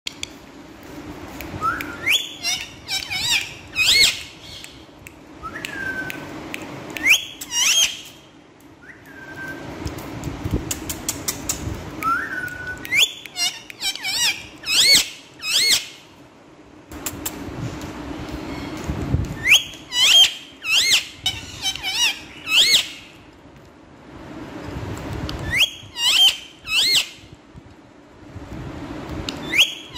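Indian ringneck parakeet calling: clusters of several shrill, rising squawks and sharp clicks, coming back every five or six seconds.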